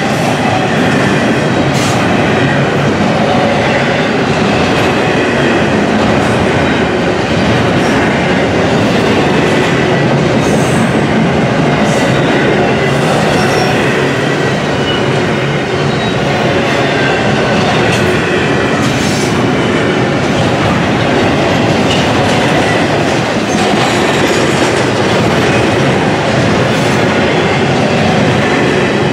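Double-stack intermodal container cars rolling past close by: a steady rumble of steel wheels on the rails with irregular clicks and clatter, and a few brief high wheel squeals now and then.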